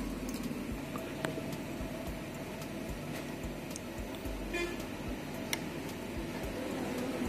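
Steady low background hum with a few faint, light clicks.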